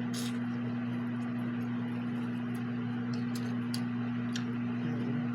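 Steady low electrical hum, with scattered faint clicks over it.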